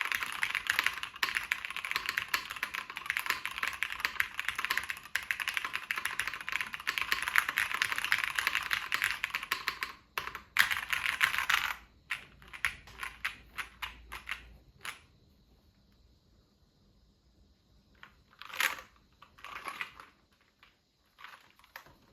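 Matrix 1.2 mechanical keyboard with Cherry MX Black linear switches, a top-mounted aluminium half plate, tape under the PCB and GMK keycaps, being typed on fast as a continuous clatter of keystrokes. After about twelve seconds it slows to scattered single presses, and near the end there are a few isolated key taps.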